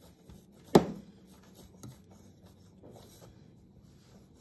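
A glass bottle rolled over a slab of soft clay on a board, a quiet rubbing roll. One sharp knock comes just under a second in and a lighter one near two seconds.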